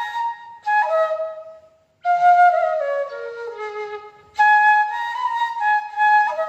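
C-sharp bamboo bansuri playing the song's filler passage in three short phrases with brief breath breaks between them, the middle phrase running steadily down in pitch.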